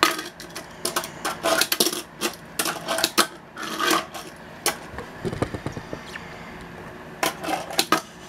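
Tech Deck fingerboard clacking against a desk, rail and ramp during finger tricks: a string of sharp clicks and taps as the board is popped, lands and hits the obstacles, with a brief low rumble a little past the middle.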